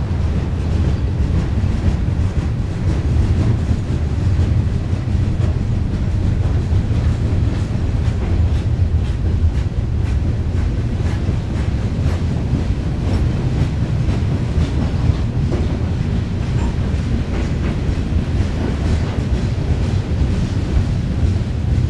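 Freight train cars rolling past in a steady low rumble, with the wheels clicking over the rail joints.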